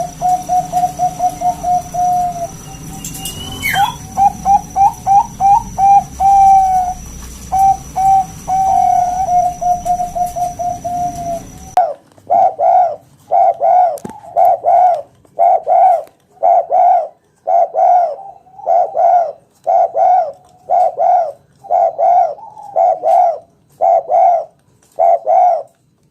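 Spotted dove (tekukur) cooing. First comes a quick series of short coos over background hiss and a steady high tone. About twelve seconds in, this changes abruptly to a clean recording of fuller coos, about one a second.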